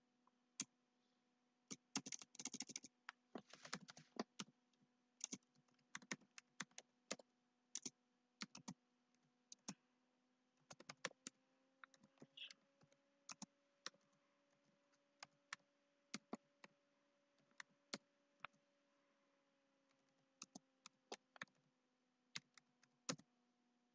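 Faint typing on a computer keyboard: irregular keystroke clicks, some in quick runs, over a faint steady hum.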